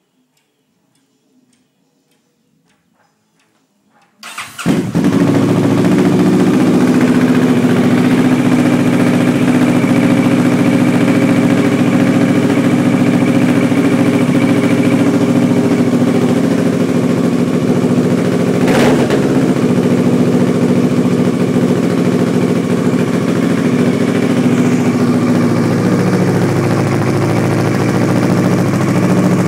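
Kawasaki ER-6n's parallel-twin engine starting about four seconds in and then idling steadily through an aftermarket twin-tip exhaust, with one sharp click partway through.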